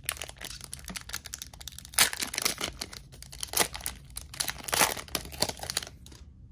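Foil trading-card booster pack wrapper crinkling and tearing as it is pulled open. The loudest bursts come about two seconds in and again near five seconds, and the crackle stops shortly before the end.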